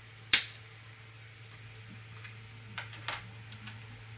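3D-printed PLA raft being snapped off freshly printed pieces: one loud, sharp crack about a third of a second in, then a few fainter clicks and cracks near the end, over a steady low hum.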